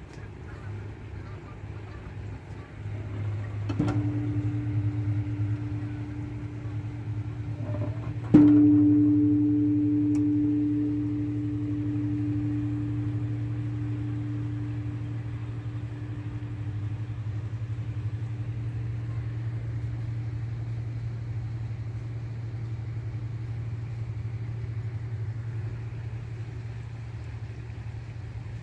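Large temple-style bell struck twice, lightly about four seconds in and then hard about eight seconds in, its ringing tone slowly dying away over about twelve seconds. A steady low hum runs underneath.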